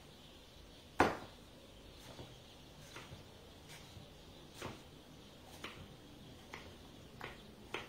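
Kitchen knife dicing melon on a wooden cutting board: the blade knocks on the board at an uneven pace, about once a second. The loudest knock comes about a second in.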